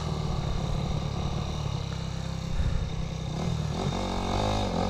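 Honda CRF250's single-cylinder four-stroke engine running steadily at low revs, its note shifting briefly about four seconds in.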